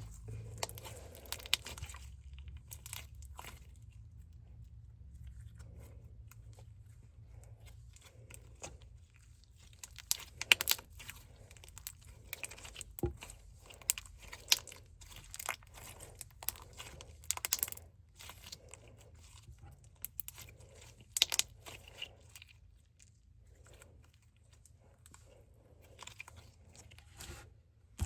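Slime being squished and stretched by hand, giving irregular wet clicks, pops and crackles, some in quick clusters.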